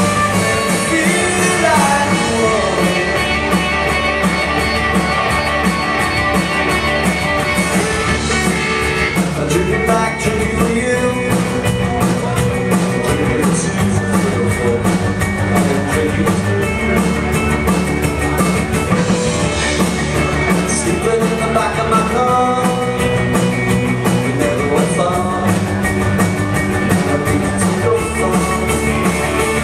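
Live rock band playing a song: a singer over guitar and a steady drum beat.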